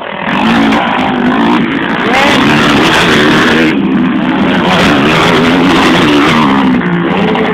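Racing quad (ATV) engines running hard at high revs, the pitch wavering up and down with the throttle. The sound comes in about a quarter second in and stays loud.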